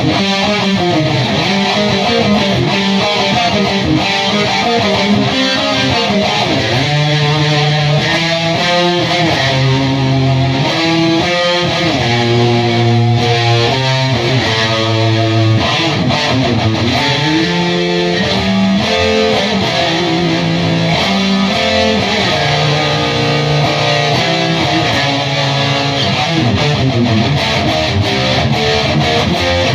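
Two electric guitars playing a riff-driven metal song with high-gain distortion straight from Bugera 333XL tube amp heads, through a Mesa speaker cabinet with no effect pedals shaping the distortion.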